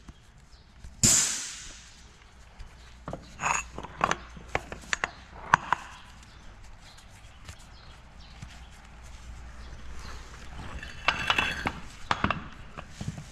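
Metal clinks and knocks from the steel yokes of a tractor PTO shaft's universal joint as they are handled and turned against each other and the concrete floor. The knocks come in scattered groups, with a short louder rush of noise about a second in.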